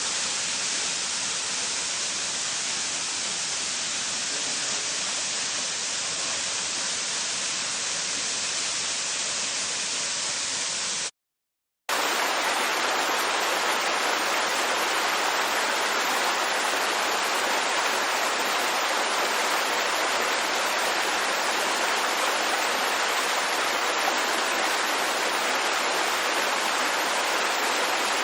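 Steady rush of running water. It cuts out for under a second about eleven seconds in, then resumes brighter and thinner, with almost no low end.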